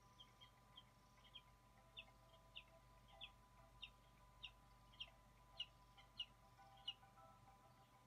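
Eaglet calling: a run of short, high chirps about every half second, growing louder, that stops about seven seconds in.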